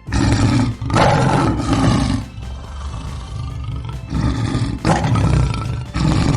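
Tiger roaring: a run of deep, rough roars and growls with short breaks between them.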